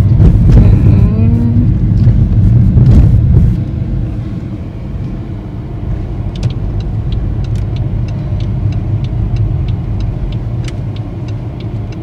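Car driving: a low road-and-engine rumble heard from inside the cabin. It is loud for the first three and a half seconds, then drops to a quieter steady rumble, with light clicks in the later part.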